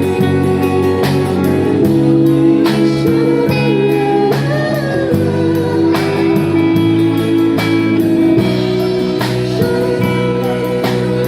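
Live band playing a pop-rock song: guitar over held chords, with drum hits recurring about once a second.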